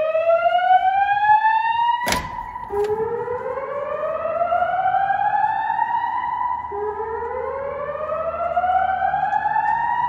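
Fire alarm speakers, System Sensor SPSR speaker strobes on a Notifier NFS2-3030 system, sounding the whoop evacuation tone: a slow rising sweep that repeats about every four seconds. A single sharp click about two seconds in.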